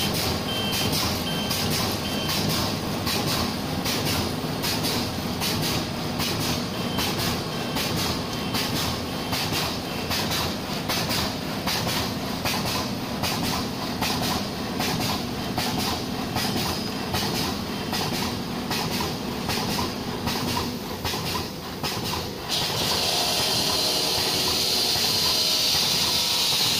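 Plastic bag cold-cutting machine running, its cutter clacking in a rapid, even rhythm, with a few short beeps about a second in. Near the end the clacking gives way to a steady hiss.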